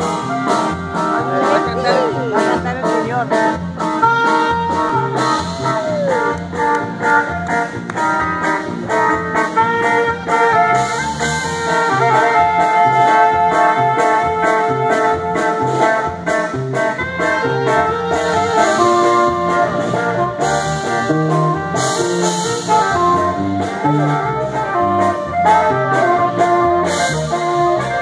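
Live norteño band playing: button accordion and saxophone carry the melody over strummed guitar and a steady drum-kit beat, amplified through PA speakers.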